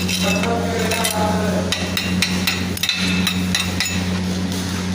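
Hammer striking steel in a string of irregular sharp taps, some ringing briefly, over a steady low electrical hum.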